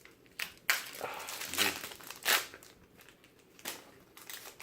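Wrapper of a trading-card pack being torn open and crinkled by hand, in a string of short, sharp rustling bursts.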